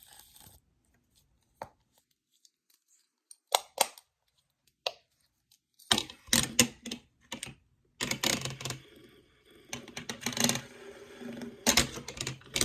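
Small fidget toys being handled: after a near-silent start, a few sharp clicks, then from about six seconds in a dense run of clicking, rattling and scraping.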